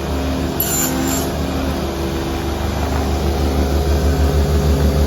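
Motor of a picture-frame cutting machine running with a steady low hum, which takes on a regular throb from about three seconds in.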